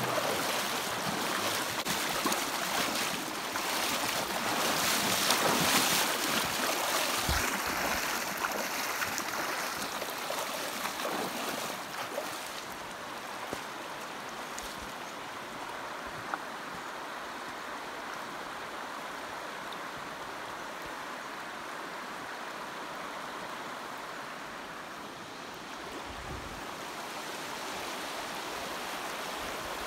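Shallow river running over rocks, a steady rush of water. For the first dozen seconds there is louder, uneven splashing as a hiker wades through the shallows.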